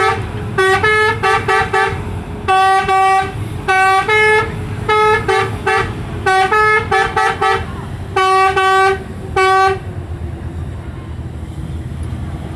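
Telolet horn, the multi-tone musical bus horn, playing a tune of short notes that change pitch, in several quick phrases, then stopping about ten seconds in. A steady low engine rumble runs underneath.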